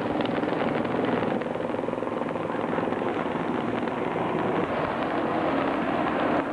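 A steady engine drone under a continuous rushing noise.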